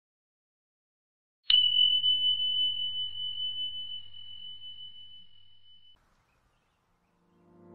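A notification-bell sound effect: a single high chime struck once about a second and a half in, ringing on one tone and fading away over about four seconds.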